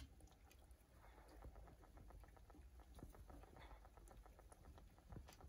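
Faint patter of light ticks, as smoked paprika is sprinkled from a shaker onto a whole chicken.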